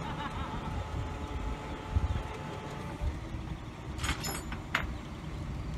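Tow truck engine running with a steady low rumble, with a few sharp metallic clanks about four seconds in.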